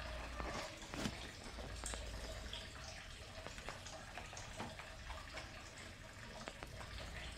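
Kittens playing at a sandal: faint, irregular small taps, clicks and scratches, with a slightly louder tap about a second in, over a low steady hum.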